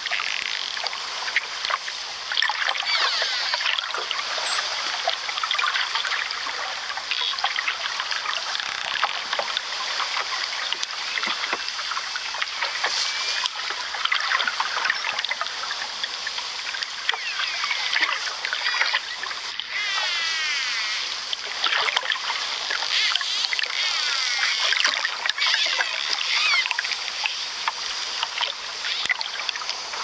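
Birds singing in quick, repeated chirps and trills over a steady rush of flowing water.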